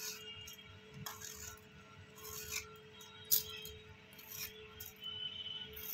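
Hand peeler scraping the skin off a bottle gourd in short, irregular strokes, over a faint steady hum.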